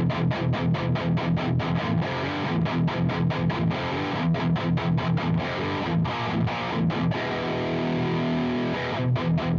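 Electric guitar through a JOYO Dark Flame high-gain distortion pedal, playing a fast palm-muted chugging riff at about five strokes a second. Near the end a chord rings out for about a second before the chugging starts again.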